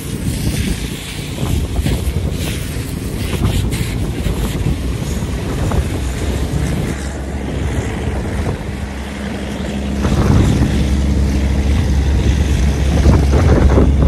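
John Deere tractor's diesel engine running as it pulls a water wagon away, with wind buffeting the microphone. The low engine note gets louder about ten seconds in.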